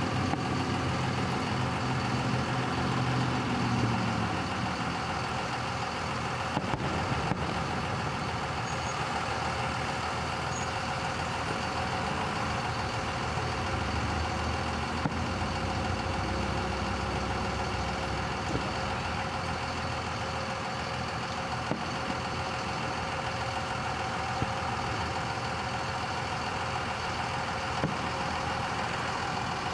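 Steady hum of an idling vehicle engine, with a few faint, sharp pops of distant aerial firework shells bursting.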